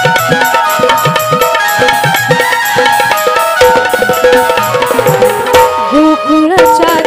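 Instrumental interlude of a Marathi folk song: hand-drum strokes in a quick, steady rhythm under held melody notes. Near the end a wavering, sliding melody line comes in.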